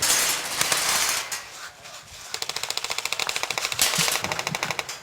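Airsoft gun firing on full auto: a rapid, even run of sharp clicks at about eight shots a second, starting a little past two seconds in. A loud rushing noise fills the first second or so.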